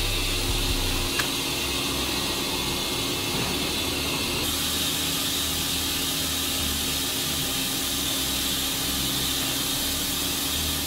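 Steady industrial noise of metal-plant machinery: a continuous hiss over a low machine hum. The sound shifts slightly about a second in and again partway through.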